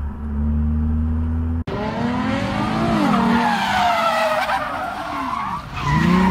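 A steady low car-cabin hum, then after a cut about a second and a half in, a car's tyres squealing in long wavering glides while its engine revs up and down as it slides.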